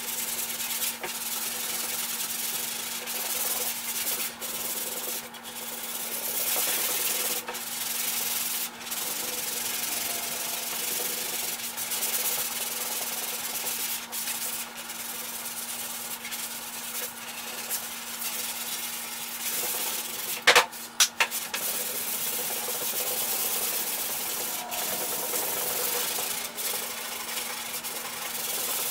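Car hood being block-sanded by hand with 180-grit sandpaper over old paint and body-filler patches: steady sandpaper strokes with brief pauses between them, over a low steady hum. A couple of sharp knocks about two-thirds of the way through are the loudest sounds.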